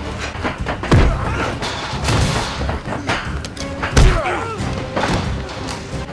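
Film fight soundtrack: music under heavy punch and body-impact thuds, the two loudest about one second in and about four seconds in.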